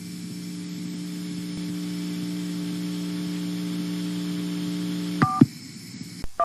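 A steady electrical hum with a faint hiss, like dead air on a broadcast channel. About five seconds in it cuts out and two short beeps sound, the second lower than the first.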